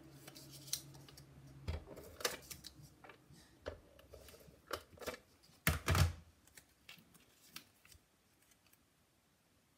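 Plastic and card stock handled on a craft table: a run of irregular clicks, taps and light rustles as a clear plastic case and paper pieces are moved about, with the loudest clacks about six seconds in. It goes quiet after about eight seconds.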